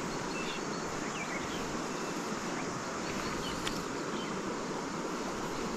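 Steady rush of a forest river flowing over a pool, with a few faint high chirps.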